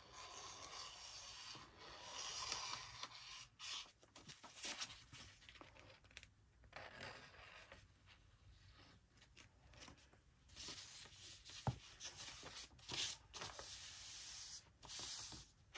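Paper rustling and rubbing in several bouts of scraping strokes, with a few light knocks, as a journal page is glued and pressed down by hand.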